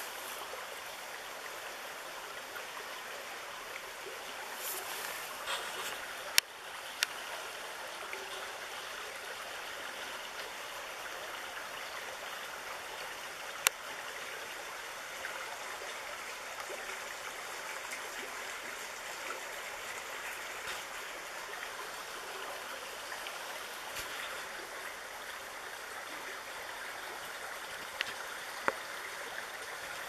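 A small forest creek running with a steady rush of water. About five short, sharp clicks stand out above it, scattered through the time.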